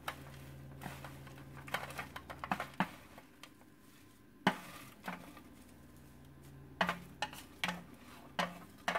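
Chopsticks clicking and tapping against a metal pan and a plate while dry shredded vegetarian meat floss is scooped and moved, in scattered light taps. A low steady hum stops about three seconds in.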